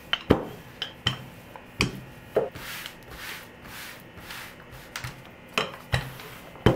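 Wooden rolling pin rolling out pizza dough on a countertop, with a scatter of sharp knocks as the pin is handled and set down. In the middle, several soft rubbing strokes of hands pressing and stretching the dough.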